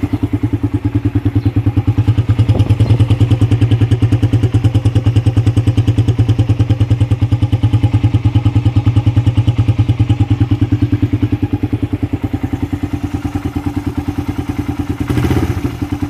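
Suzuki Raider R150's single-cylinder four-stroke engine idling with an even exhaust beat at the muffler, the catalytic converter removed from inside the pipe. It grows slightly louder for several seconds in the middle, then settles back.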